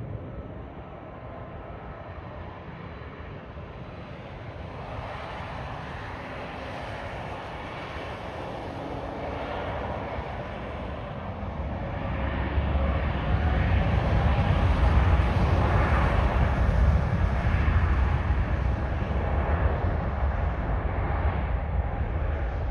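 Jet airliner's engines passing close, a rushing noise that builds to a loud low rumble about halfway through and stays loud.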